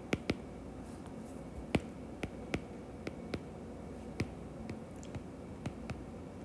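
Stylus tip tapping and clicking on a tablet's glass screen while handwriting: about a dozen sharp, irregularly spaced taps over faint room hum.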